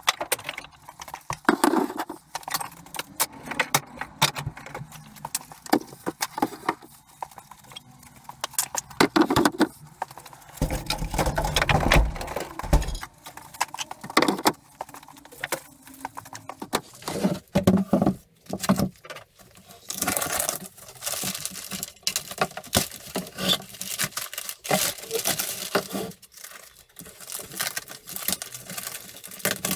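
Wooden pallet boards and tools being handled on a workbench: irregular knocks, clatter and rattling, with a low rumble about a third of the way in.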